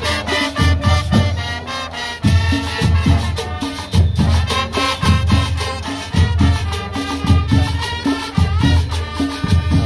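Live brass band playing lively Latin dance music: a sousaphone bass line under trumpets, with steady percussion.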